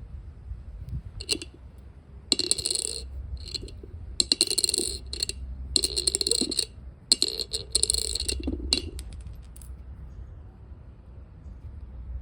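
A penny dropped several times onto a hard surface, each drop clinking as it bounces and then ringing with a bright, high ping as it settles. This is a sound test for a brass penny, since brass pings and copper sounds duller.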